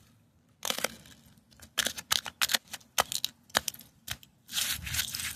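Bare feet stepping on icy, crusted snow, giving irregular crunches and crackles that grow denser near the end.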